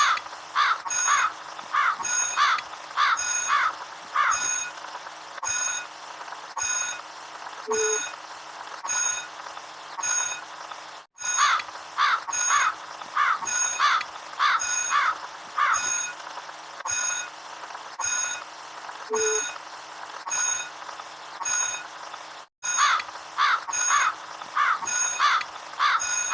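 Looped electronic sound effect: quick chirping beeps over steady high tones, in a pattern about eleven seconds long that cuts out for a moment and restarts twice.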